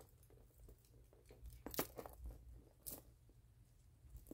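Quiet handling noises: tissue paper and plastic packaging rustling as a small handbag is handled, with two brief sharp crinkles a little under two seconds and about three seconds in.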